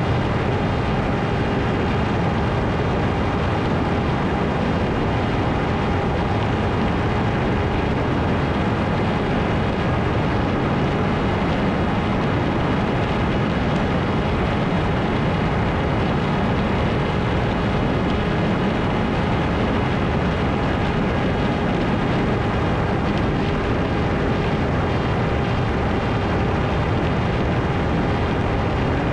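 Ritewing Hardcore 38 FPV flying wing in flight: its electric motor and propeller hum evenly under a heavy, constant rush of wind.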